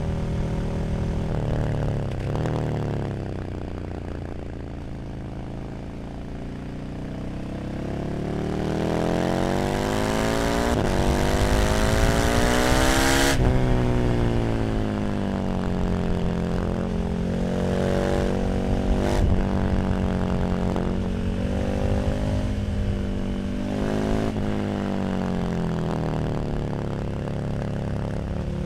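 KTM 1290 Super Duke R's V-twin engine through an Arrow slip-on exhaust under way. It slows at first, then pulls hard with the pitch climbing for several seconds and breaks off sharply about halfway through. It then runs at a steady pace with a few brief sharp breaks and picks up again near the end.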